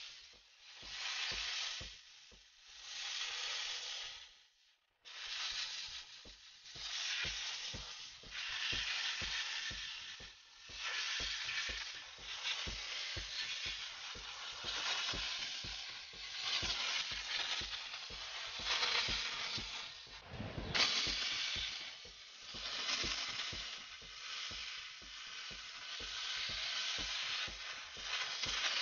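Wagner 915 steam cleaner's jet nozzle hissing as it blasts steam over an engine bay. The hiss comes in repeated bursts of one to two seconds, with short lulls between.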